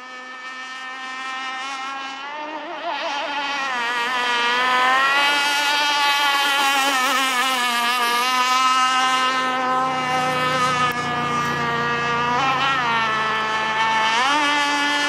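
Radio-controlled speedboat engine running at speed on a break-in run, a high whine that grows louder over the first few seconds. Near the end its pitch dips and climbs back twice as the throttle changes.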